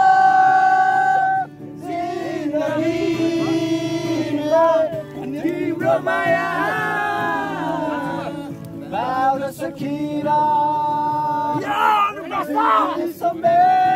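A group of men singing a song together, with long held notes.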